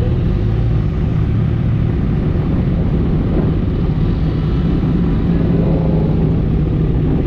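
Motorcycle engine running at a steady speed under a constant rush of wind and road noise, as heard from a bike on the move.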